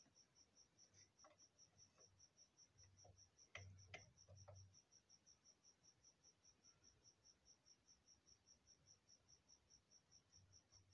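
Faint, steady chirping of a cricket, about five or six high chirps a second. A few light metal clicks and taps near the middle come from the sewing machine's shuttle-race plate being handled and fitted.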